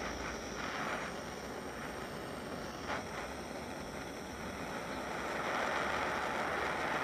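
Handheld butane torch burning with a steady hissing flame while it heats activated charcoal in a glass test tube. There is a short click about three seconds in, and the hiss grows a little louder after about five seconds.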